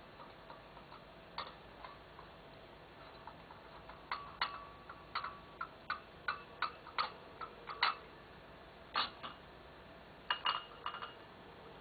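Irregular clinks and taps of plates and cutlery, about twenty over several seconds, some ringing briefly: a civet picking through leftover dinner on the table.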